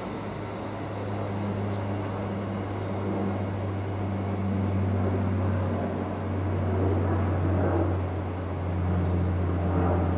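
Train at a station making a steady low hum that swells a little now and then.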